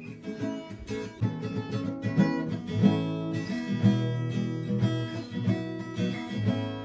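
Classical nylon-string guitar being played, with plucked notes and chords ringing on through.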